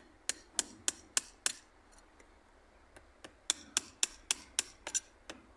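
Light, sharp taps driving linden graft scions down into the bark of the cut stump, about three taps a second, in two runs with a pause of about two seconds between them.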